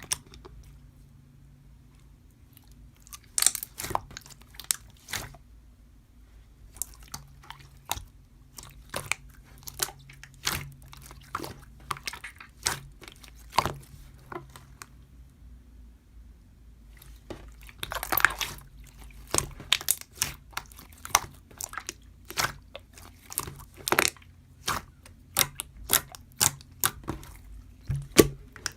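Slime being squeezed and pressed by hand, making irregular sharp pops and clicks of trapped air, coming several a second in the second half, over a faint steady low hum.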